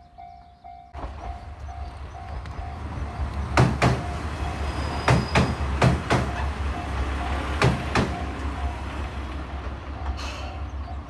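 Railway level-crossing bell ringing in a steady 'kan-kan' rhythm while a train runs over the crossing: its rumble comes in about a second in, and its wheels clack over the rail joints in pairs several times in the middle.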